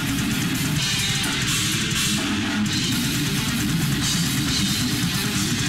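Heavy rock played on electric guitar with a drum kit, recorded through an old Hi8 camcorder.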